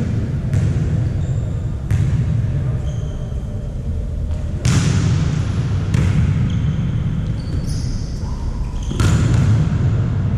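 A volleyball being struck and bouncing in a sports hall: about five sharp smacks at uneven intervals, over a steady low rumble, with short high squeaks between them.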